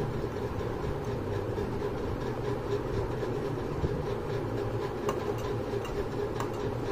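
A steady low rumble of background noise, with a few light plastic clicks as a clear plastic plate is pressed and slid into place over the sewing machine's metal needle plate.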